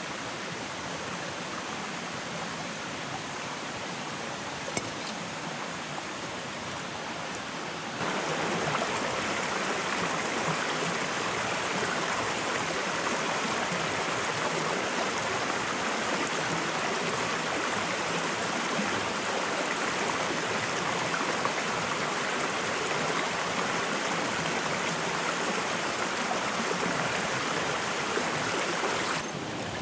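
A forest stream running over rocks: a steady rush of water that gets suddenly louder about eight seconds in.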